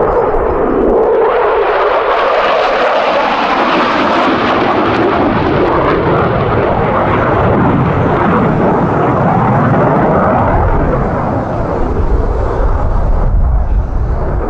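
Loud jet engine noise from a Belgian Air Force F-16 fighter flying a display. A hiss rises about a second in, and a deep rumble builds over the second half.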